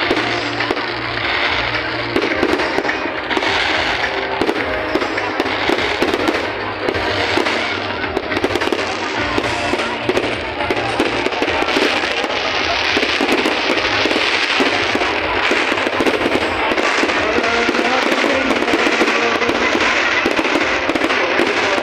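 Fireworks display: a continuous barrage of crackling pops and bangs that grows denser about halfway through, with music playing alongside.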